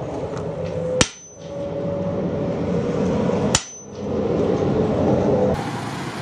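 Two sharp, ringing hammer strikes on steel, about two and a half seconds apart, over the steady rushing noise of a charcoal forge fire under blast. Near the end the background changes to a different steady sound.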